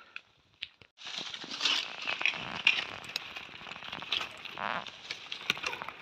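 Dry leaves and twigs crackling and rustling underfoot as someone moves through forest undergrowth. It starts abruptly about a second in, after near silence, and goes on as a dense run of small crackles.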